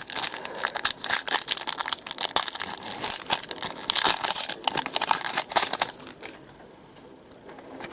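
Trading card pack wrapper being torn open and crinkled by hand, a dense run of crackling that dies down about six seconds in.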